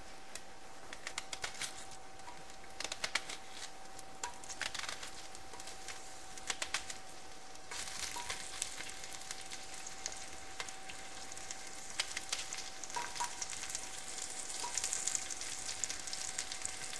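Onion slices being cut over a pot and dropping into hot oil, heard as scattered sharp clicks and taps, with the oil sizzling gently on a low flame. From about eight seconds in the sizzling turns steady and grows a little louder as more onion goes in.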